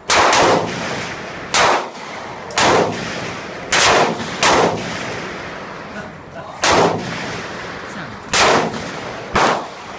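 Gunshots: about nine single shots fired at uneven intervals, each followed by a short ringing echo.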